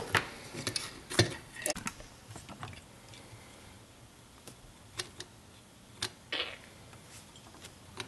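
Scattered light clicks and taps of small parts being handled and set onto a wooden base, with a few sharper ticks about a second in and again later.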